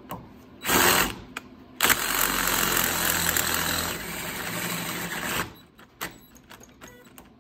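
Cordless drill boring out a hole in a steel black-pipe fitting held in a vise, enlarging it with a bigger bit. A short burst about a second in, then a steady run of drilling for about three and a half seconds that stops abruptly, followed by a few small clicks.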